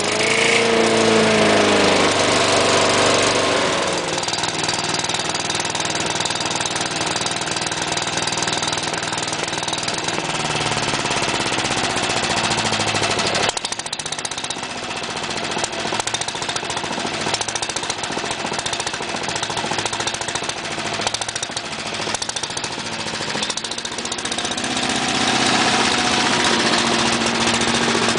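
Wood chipper running at working speed, a steady engine drone with a rough rattle. Its engine note drops in the first few seconds and again about ten seconds in.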